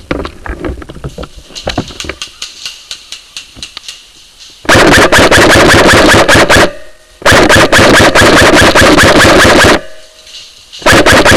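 Airsoft gun firing three full-auto bursts, very loud and rapid: about two seconds, then about two and a half seconds, then a short burst near the end. Before the first burst, scattered light ticks and knocks of gear handling.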